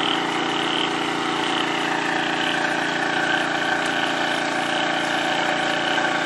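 An engine running steadily at idle: one constant, unchanging drone.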